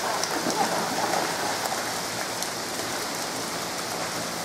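Heavy rain falling steadily onto a flooded street, an even hiss of downpour.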